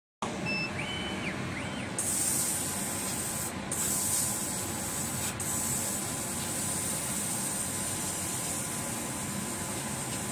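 100 W CO2 laser cutting machine running as it cuts felt: a steady machine hum with a high hiss that comes in about two seconds in and breaks off briefly twice.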